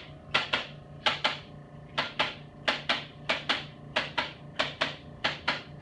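Chiropractic adjusting instrument tapping in quick double clicks, about a pair every three-quarters of a second, over a faint steady hum.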